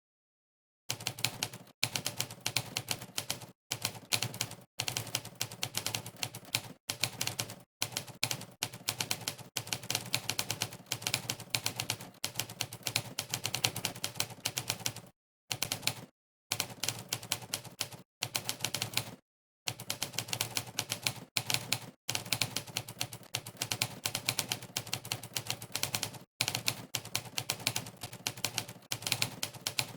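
Monkeytype's typewriter keypress sound effect, one clack for each key struck, in fast continuous typing. It starts about a second in and breaks off into brief silences every few seconds when the typing pauses.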